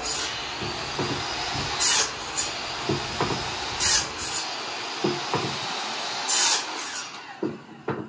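Electric cut-off saw running and chopping wooden edgings to length: three short, louder cuts about two seconds apart, with a high whine rising after each cut.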